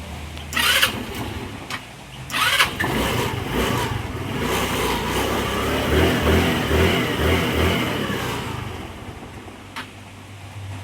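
Motorcycle engine being started with difficulty: two short attempts, then it catches and runs unevenly for several seconds before dying down near the end. It is misfiring and will not hold an idle, so it stalls.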